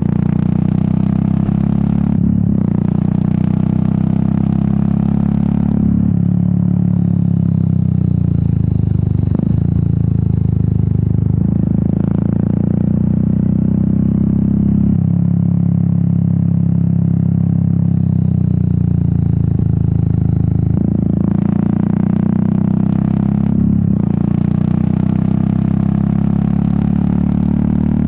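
Royal Enfield Meteor 350's air-cooled single-cylinder engine and exhaust under way on the road, its note shifting several times with throttle and gear changes.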